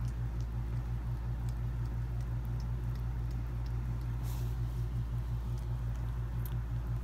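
Mother dog licking and nuzzling her newborn puppies: soft, wet licking clicks over a steady, fast-pulsing low hum, with a brief hissy sound about four seconds in.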